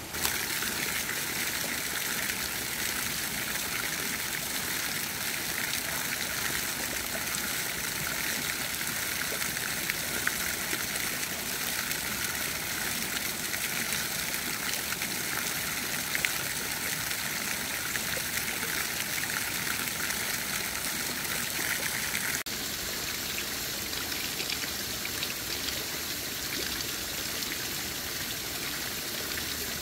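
Shallow stream water trickling and running steadily over moss and stones. The sound steps slightly quieter about two-thirds of the way through.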